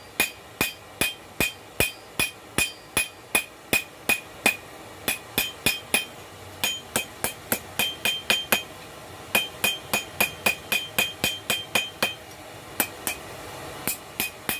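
Hand hammer striking hot steel on an anvil, forging a knife blade: a steady run of blows about three a second, broken by a few short pauses, each blow leaving a bright metallic ring.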